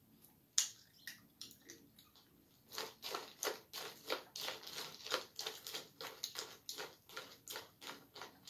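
Someone chewing a mouthful of crunchy cereal in milk: irregular crackly crunches that start about half a second in and come thick and fast, several a second, from about three seconds on.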